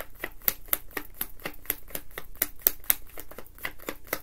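A deck of tarot cards being shuffled by hand: a quick run of soft card-edge clicks, about eight to ten a second.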